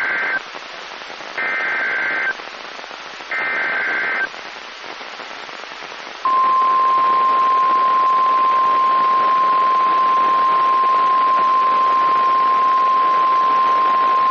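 NOAA Weather Radio Emergency Alert System activation. Three harsh data bursts of the SAME header, each about a second long, the first already under way, are followed about six seconds in by the long, steady, loud warning alarm tone, over a background hiss of radio static. The sequence announces a tornado warning that is about to be broadcast.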